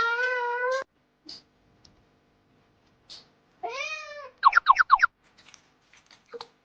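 A cat meowing: one long wavering meow at the start, then after a pause a meow that rises and falls, followed at once by a quick run of about six short chirping calls.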